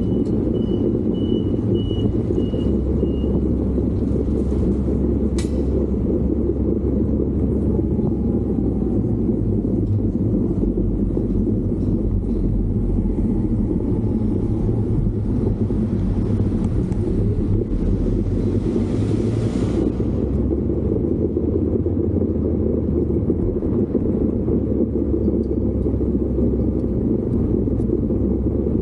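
A vehicle running steadily, with constant low engine and road rumble. A thin high tone sounds for the first few seconds, there is a sharp click about five seconds in, and a brief hiss swells and fades around two-thirds of the way through.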